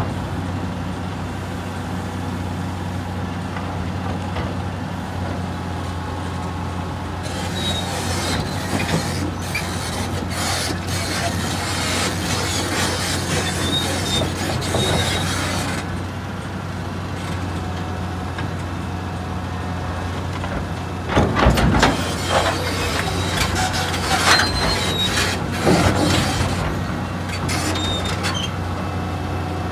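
Liebherr 962 crawler excavator's diesel engine running steadily under hydraulic load as it works its boom and bucket, with metal creaks and short high squeaks. Loud clanking comes in bursts about 21, 24 and 26 seconds in.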